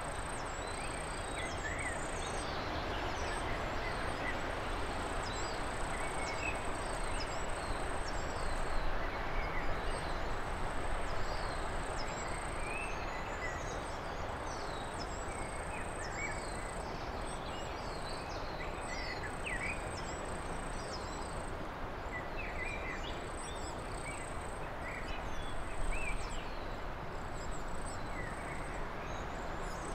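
Outdoor nature ambience: many small birds chirping and calling in short, scattered notes over a steady rushing noise. A thin, high, steady buzz runs above them, breaking off briefly every few seconds.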